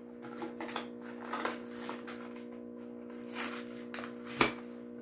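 Steady low electrical hum from a motorized display turntable spinning a diecast model truck, with faint scattered crinkles and clicks and one sharper click about four seconds in.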